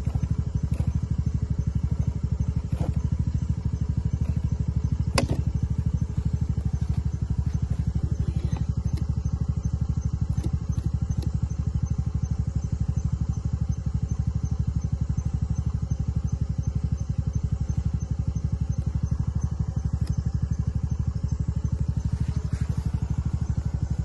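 An engine idling steadily with a fast, even throb, and a single sharp click about five seconds in.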